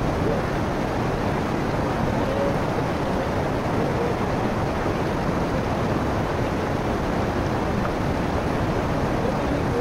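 A fast mountain river rushing over rocks: a steady, even rush of water.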